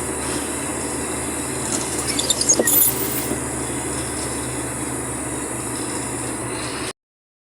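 A vehicle driving on the road: steady engine and road noise, with a few short squeaks about two to three seconds in. The sound cuts out completely near the end.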